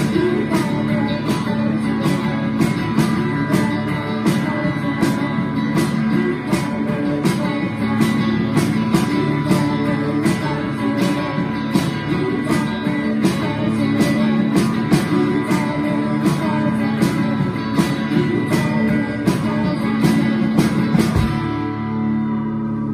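Live rock band playing, guitar over drums keeping a steady beat. Near the end the drums stop and held guitar notes ring on alone.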